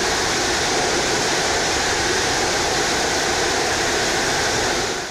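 Saab Gripen E's General Electric F414G turbofan running at full power in afterburner during a ground run, a loud, steady rushing noise of jet exhaust.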